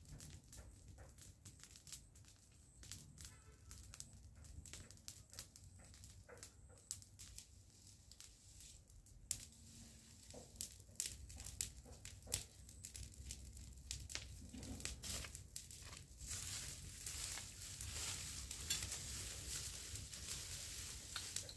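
Dry grass and leaves crackling faintly, with scattered sharp crackles, then a denser rustling from about three quarters of the way through as dry leaves are gathered up by hand.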